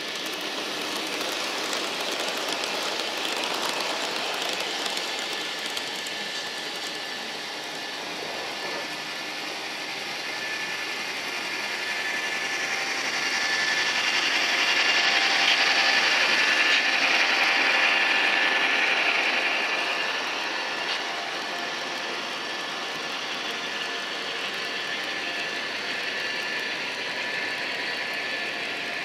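Model trains running on metal track: a steady rolling rattle of wheels and cars with a thin electric-motor whine. It swells to its loudest about halfway through as a train passes close by, then eases off.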